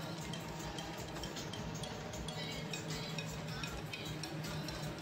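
Ride inside a moving bus: a steady low engine hum with repeated light clinks and ticks from the rattling cabin.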